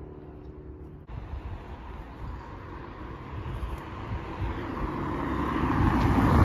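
A vehicle approaching on the street, its engine and tyre noise growing steadily louder from about a second in, after a brief low hum.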